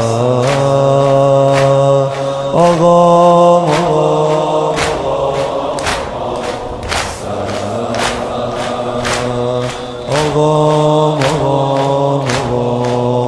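Shia mourning chant (noha): voices holding long drawn-out notes that change pitch every few seconds, over a steady beat about once a second.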